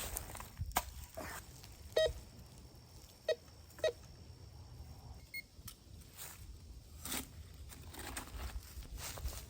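Metal detector giving short tone beeps, three of them a second or so apart in the middle, over a metal target: a buried piece of tin can. A few clicks and scuffs come in between.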